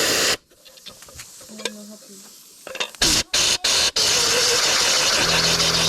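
Compressed-air blow gun cleaning a boiler fan: short bursts of hissing air, then a continuous blast from about two-thirds of the way in. Near the end an air compressor's motor starts running with a steady hum underneath.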